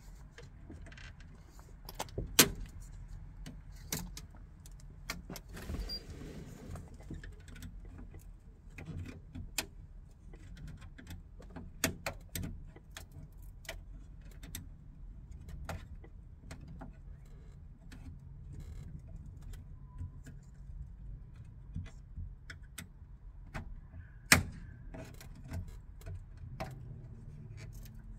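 Side window frame strip being worked out of a Fiat 126 door: scattered clicks, knocks and scrapes. The two sharpest knocks come about two seconds in and near the end, and there is a brief scraping rustle around six seconds in.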